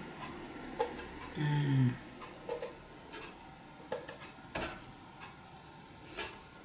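Scattered light taps and knocks of hands setting soft dough balls into a stainless-steel mixing bowl, with a short vocal sound about one and a half seconds in.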